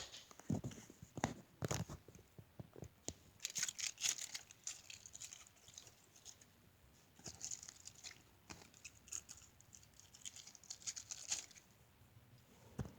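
Handling noise from small objects: scattered clicks and taps, with a few bouts of crisp crinkling.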